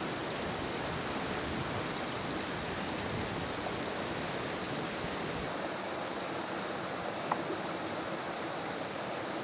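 Mountain stream running over rocks: a steady, even rush of water. One short click is heard once, late on.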